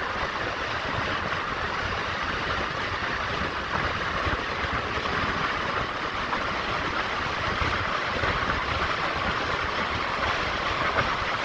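Steady noise of a moving vehicle, an even road-and-engine rumble and hiss with no breaks.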